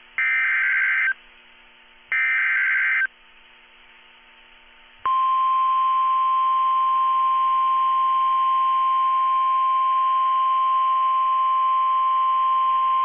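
Two short raspy Emergency Alert System SAME header data bursts, each about a second long and a second apart. After a two-second pause, the single steady NOAA Weather Radio 1050 Hz warning alarm tone starts and holds, announcing a severe thunderstorm warning.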